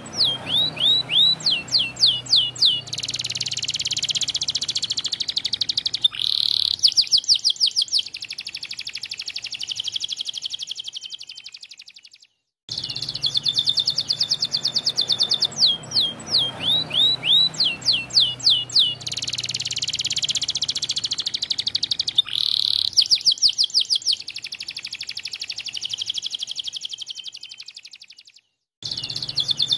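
Domestic canary singing a long, continuous song of fast trills, rolls and rapid high sweeping notes. The same phrase sequence plays twice, each time breaking off in a sudden short silence.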